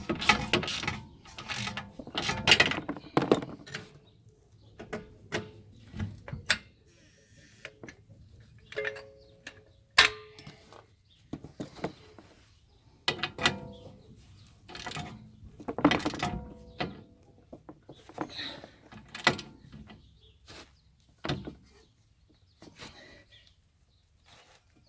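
Hand tools and metal parts at work on the car's suspension: a string of irregular clicks, clanks and knocks, with a short metallic ring about nine seconds in.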